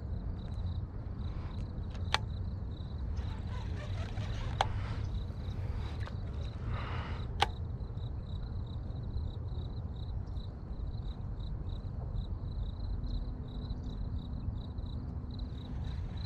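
Wind rumbling on the microphone, with a steady, rapidly pulsing high insect trill behind it and three sharp clicks in the first half.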